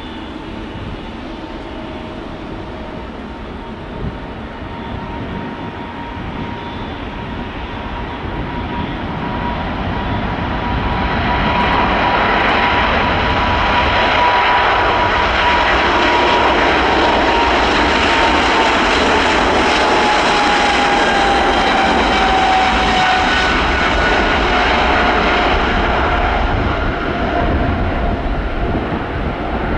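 An aircraft passing by: its engine noise grows louder over several seconds and stays loud for a while. Its steady tone drops in pitch as it goes past, and the noise then eases off.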